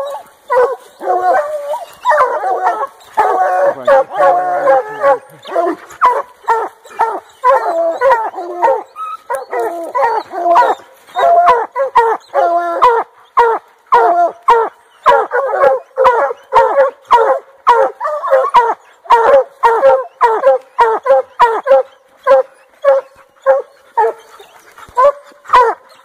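Several dogs, a black-and-tan coonhound among them, barking treed at the foot of a tree: a steady run of barks with some longer drawn-out bawls overlapping in the first few seconds, then mostly single barks about two a second.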